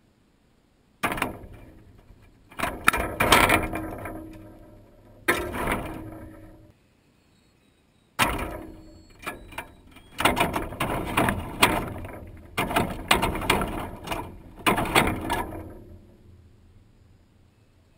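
Wire-mesh peanut feeder clattering and rattling as it is jostled and turns, with the camera fixed to it. There are a few short bursts, then near-continuous rattling for about eight seconds, dying away near the end.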